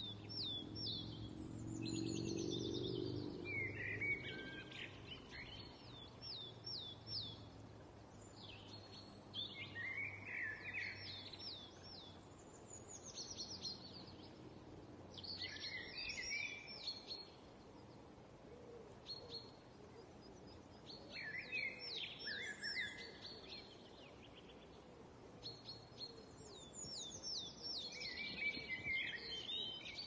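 A songbird singing the same short phrase again and again, about every six seconds: a run of quick falling notes that ends in a lower flourish. A low rumble sits under the song for the first few seconds.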